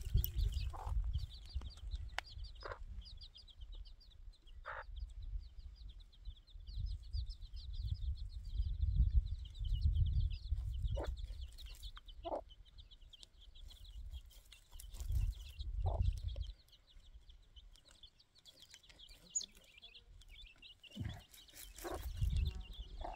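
A brood of chicks peeping continuously in rapid high chirps, with a hen giving short clucks now and then, over a low wind rumble.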